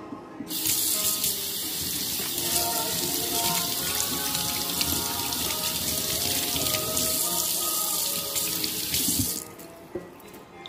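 Kitchen tap running into a stainless steel sink while hands are washed under the stream. The water comes on about half a second in and shuts off about nine seconds in, with background music underneath.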